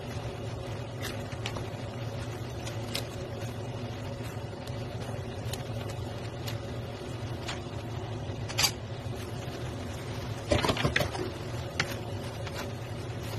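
Wooden spatula scraping and knocking against a pan while noodles are tossed, scattered taps with a louder knock past the middle and a quick cluster of knocks near the end, over a steady background hum.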